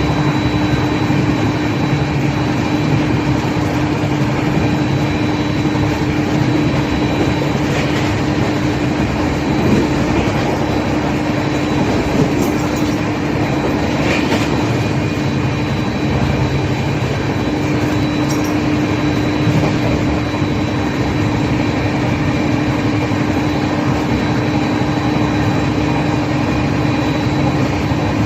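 Indian Railways LHB passenger coaches running on track: steady wheel-and-rail rumble with a constant hum and a few sharp clicks from the track.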